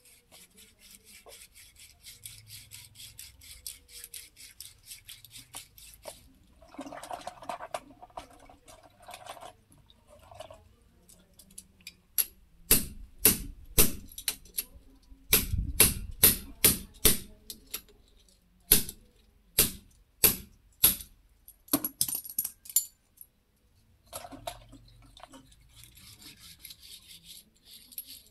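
Hand work on a tractor's front wheel hub and bearing parts: scratchy scrubbing at first, then a run of about fifteen sharp knocks, some close together, over roughly eight seconds, then scrubbing again near the end.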